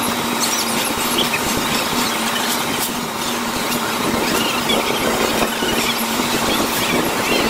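Parade street ambience fast-forwarded to four times speed: crowd voices raised into high, chirpy squeaks over a steady hum.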